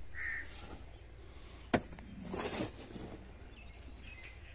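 Metal hoe blade chopping and scraping into dry, sandy earth. There are a few strokes, with one sharp strike a little under two seconds in, followed by a longer gritty scrape of soil.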